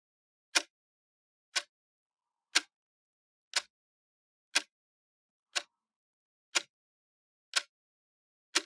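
Clock ticking once a second: short, sharp, evenly spaced ticks with silence between.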